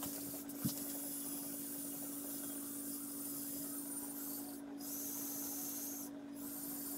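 Lego Technic Liebherr R 9800 excavator model driving on its tracks: a steady electric motor whine with the rasp of the plastic tracks. There is one sharp click near the start.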